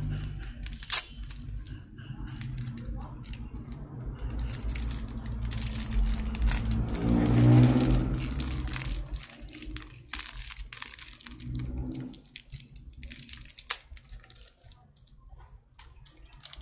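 Crinkling and tearing of a small plastic packet being handled and opened by hand, in irregular crackles. A low hum swells up in the middle.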